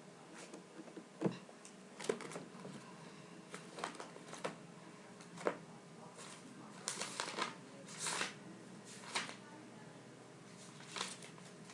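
Scattered, irregular plastic clicks and rustles of a Rubik's cube being handled and turned.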